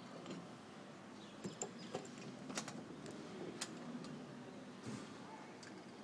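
About seven light, irregular clicks and taps over a faint steady hiss, the sharpest about two and a half seconds in.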